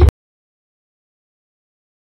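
Dead silence: the sound cuts off abruptly at the very start, right at the end of a spoken word.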